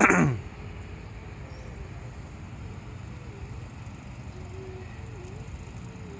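Bus engines running in a steady low rumble as a convoy of coaches pulls out. Right at the start there is a sudden loud sound that drops quickly in pitch and fades within half a second.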